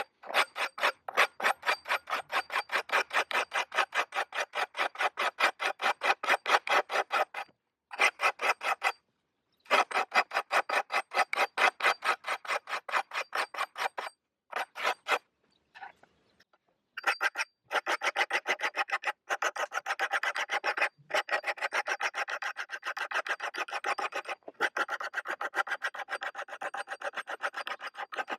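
A hand file working in quick, even back-and-forth strokes, several a second. It breaks off briefly a few times, then strokes faster and more densely for the second half.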